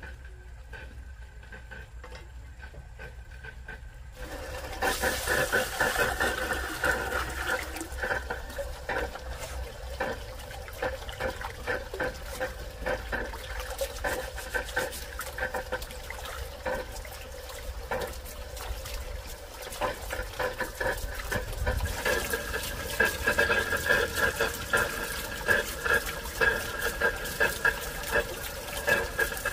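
Water running and splashing, starting suddenly about four seconds in and getting louder near the end.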